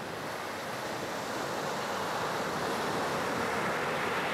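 Steady rush of ocean surf, growing slightly louder over the first few seconds.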